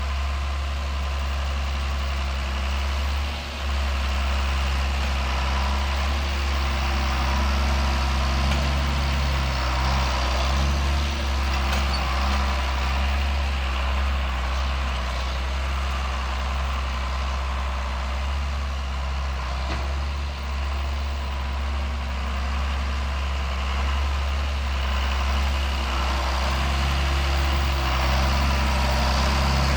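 John Deere 7610 tractor's six-cylinder diesel engine running steadily, with a deep, even drone.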